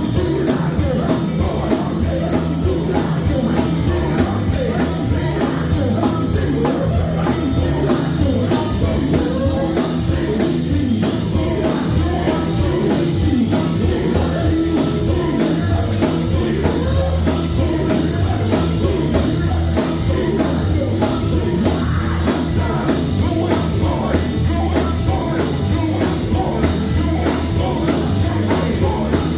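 Live gospel quartet music: loud singing voices over a band with drums and a low, stepping bass line, playing steadily throughout.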